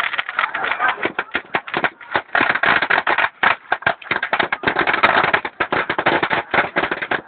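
Large wooden bonfire burning hard, with a dense, irregular run of crackles and pops.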